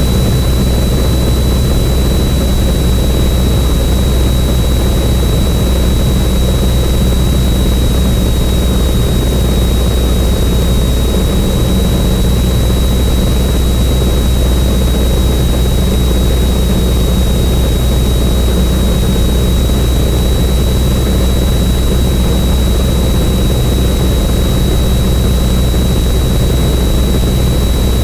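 Cessna 172N's four-cylinder Lycoming engine and propeller droning steadily in flight, heard inside the cabin, with a thin steady high whine over it.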